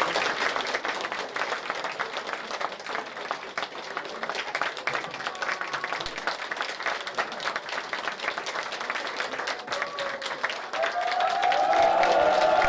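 A crowd applauding, with many hands clapping at once. A little over ten seconds in, voices join in over the clapping, shouting and cheering, and it gets louder.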